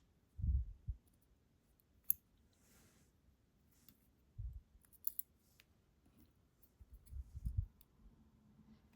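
Faint handling of small lock parts: a few soft low thumps and several sharp little clicks as the pins of a disassembled Yale 500 lock are picked up and set down.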